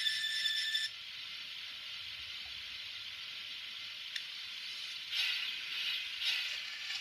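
Sound decoder of a Minitrix N-scale class 01 steam locomotive playing steam-engine sounds through its tiny speaker: a whistle-like tone that stops about a second in, then a steady hiss of steam, with louder bursts of hiss about five seconds in.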